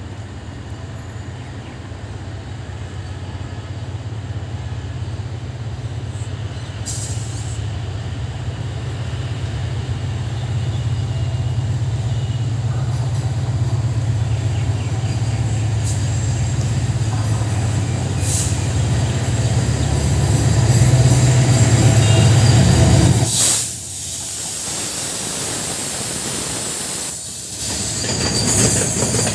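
EMD GT42ACL diesel-electric locomotive approaching and passing with a container train, its low engine drone growing steadily louder. About 23 seconds in the drone falls away suddenly, and the container wagons roll past with wheel hiss, squeal and clatter on the rails.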